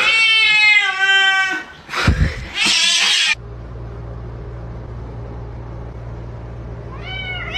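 A cat's long, drawn-out meow that rises and falls, then a short burst of hissing noise. After a cut comes a steady low hum, with another meow starting near the end.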